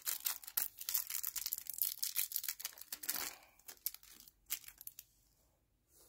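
Small clear plastic bag crinkling and crackling in the hands for about three seconds, then a few scattered crackles before it stops.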